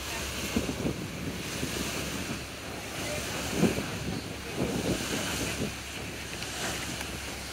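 Wind buffeting the microphone over the rush of sea water, in uneven gusts with low thumps, the strongest a little past halfway.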